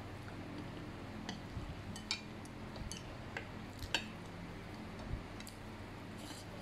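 Chopsticks clicking and tapping against a ceramic plate while picking up fried noodles: a few scattered sharp clicks, the loudest about four seconds in.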